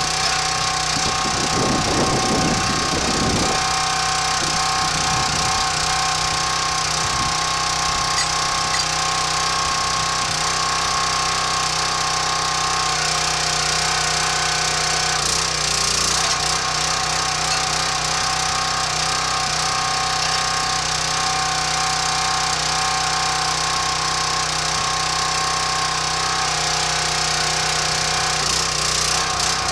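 Small gas engine of a 25-ton hydraulic log splitter running steadily, with a brief clatter of chain and metal about two seconds in.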